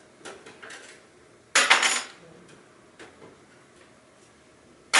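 Metal computer hardware clanking as it is worked inside an open aluminium Mac Pro tower case. A few light clicks come first, then one loud, sharp metallic clank with a short ring about a second and a half in, then a couple more light clicks, and a second loud clank near the end.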